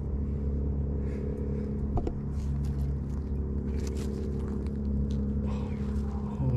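A steady low droning hum, with short crackles of dry leaves rustling as a hand reaches into the leaf litter towards a mushroom.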